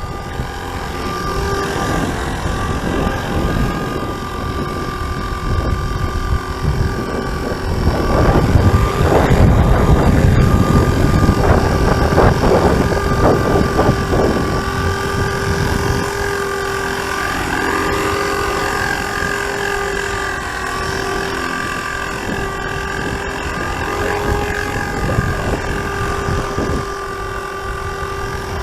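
FORZA450 radio-controlled helicopter hovering, its motor and rotor giving a steady, slightly wavering whine. Strong gusting wind on the microphone rumbles over it, heaviest about a third of the way in.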